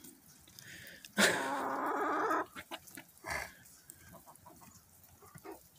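A chicken calling: one drawn-out call lasting about a second and a half, then a short second call a moment later.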